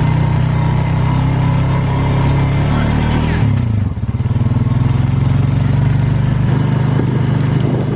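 Quad bike (ATV) engine running under way. Its pitch drops and dips briefly about halfway through, then runs steady again.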